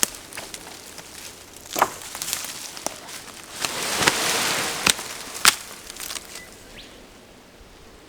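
Wooden sticks and poles cracking and knocking against each other with rustling of brush as a stick shelter is pulled apart. About five sharp cracks, the loudest about five and a half seconds in, then it goes quiet near the end.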